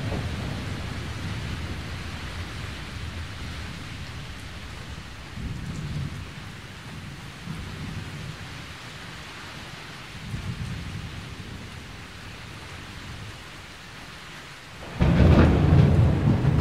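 Thunderstorm: steady rain with several low rumbles of thunder, then a much louder crack of thunder breaking in suddenly near the end and carrying on.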